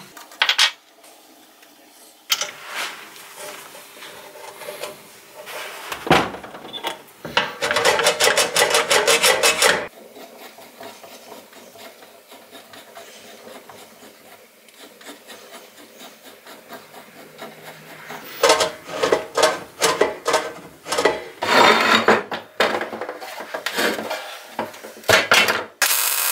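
Rhythmic back-and-forth rasping strokes of hand abrasive work, like a file or sandpaper worked over a part. The strokes come in bouts, with a fast dense run about eight seconds in and another series of strong strokes from about eighteen seconds on.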